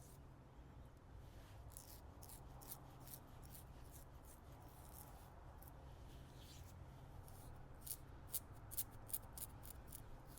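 Double-edge safety razor with a Kai blade scraping stubble through lather in short strokes: a quiet series of brief scratchy strokes, sharper and more separate near the end.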